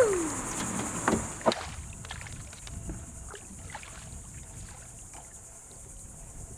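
Hooked snook splashing at the surface beside a boat as it is led to a landing net: two sharp splashes about a second and a half in, then lighter water sloshing.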